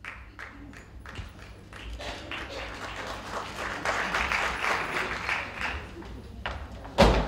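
Theatre audience applauding, swelling to a peak about halfway through and then dying away. Near the end a single loud thump cuts in.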